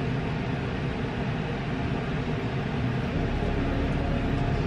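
Hand-held hair dryer blowing steadily, drying a layer of lace wig glue.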